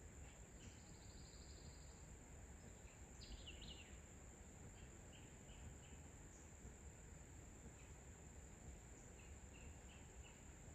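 Faint outdoor nature ambience: a steady, high-pitched insect drone with a few short bird chirps scattered through it, the clearest about three to four seconds in.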